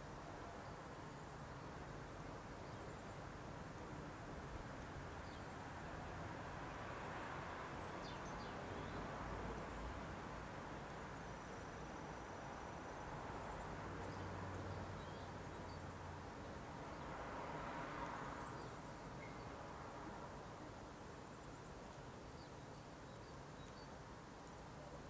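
Faint outdoor background noise: a steady low hiss that swells gently twice, with faint high chirps scattered through.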